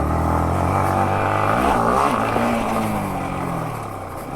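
Yamaha MT-15's single-cylinder engine running as the bike is ridden. Its pitch climbs and shifts about halfway through, then eases down over the last couple of seconds.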